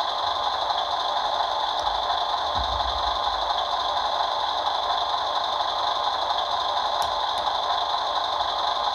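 ScaleART Mercedes Arocs RC truck's sound module playing a steady diesel idle through its small speaker.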